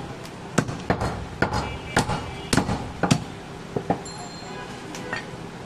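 Heavy butcher's cleaver chopping goat meat on a round wooden log chopping block: sharp chops about twice a second for around three seconds, then a few sparser ones as the meat is gathered up.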